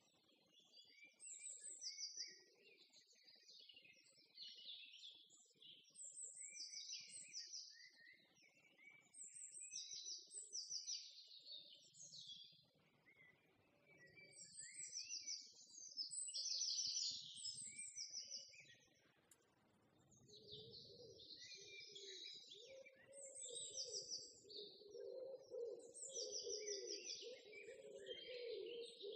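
Faint small birds chirping in repeated short bursts. A lower wavering tone joins about two-thirds of the way in.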